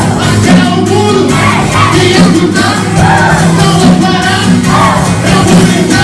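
Live worship music: a band playing with a steady beat, with voices singing or calling out along with it.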